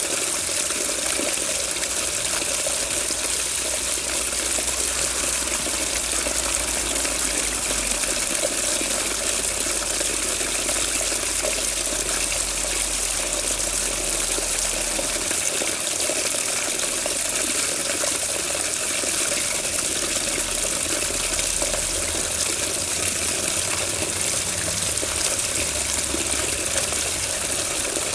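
Running water gushing steadily and evenly, with no pauses or changes.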